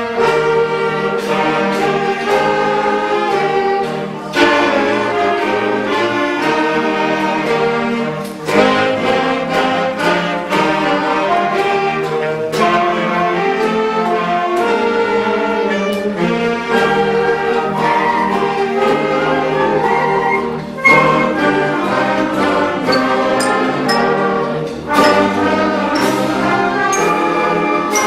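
A school concert band of brass and woodwinds playing a piece, with trumpets and trombones prominent and sharp percussion strikes every few seconds.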